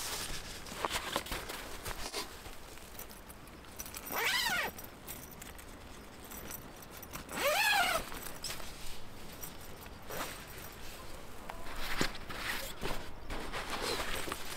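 Two short animal calls about three seconds apart, each rising and then falling in pitch. Faint rustling and clicking of tent fabric and straps being handled runs underneath.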